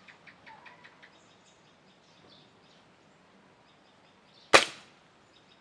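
Precihole NX100 air rifle firing a single .177 pellet: one sharp shot about four and a half seconds in, dying away quickly.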